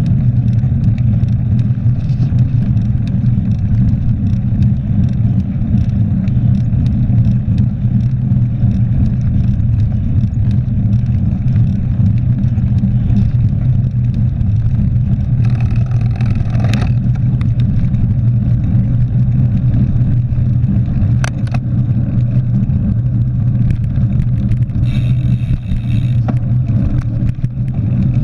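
Steady wind and road rumble on a bike-mounted action camera as a mountain bike rolls along a rough asphalt road. A few short, higher noises break in around the middle and near the end.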